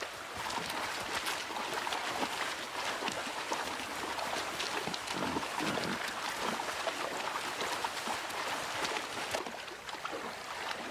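Wild boar splashing through a shallow, rocky river as the herd wades across, over the steady rush of running water.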